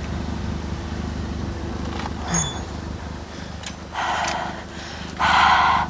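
Car engine idling with a steady low hum. Short bursts of hissing noise come about four seconds in and again near the end.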